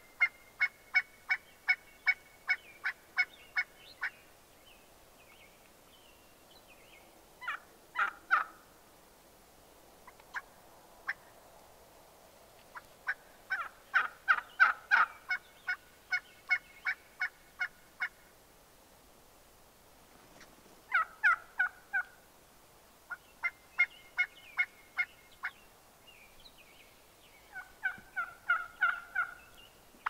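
Gould's wild turkeys calling: several runs of evenly spaced yelps, about three or four a second, with short rattling gobbles in between.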